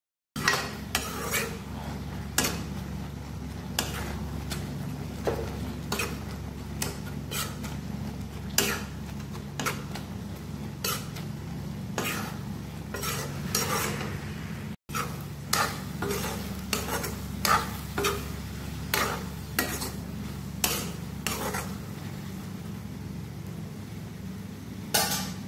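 A spatula stirring a thick vegetable and lentil sabji in a kadai, scraping and knocking against the pan one or two times a second over a steady low hum.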